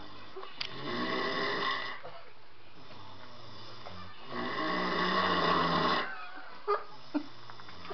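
Domestic pig snoring in its sleep: two long snores about three and a half seconds apart, then two short, sharp sounds near the end.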